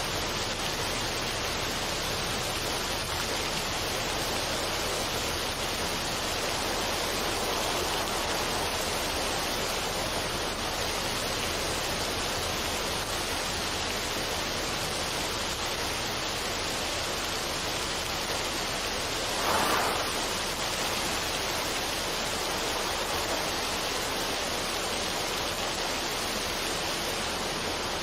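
Waterfall on a mountain stream, water rushing over rocks in a steady, even rush, with one brief louder surge about two-thirds of the way through.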